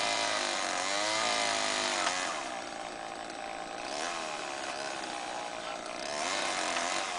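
Chainsaw cutting wood, its engine revving up and falling back several times.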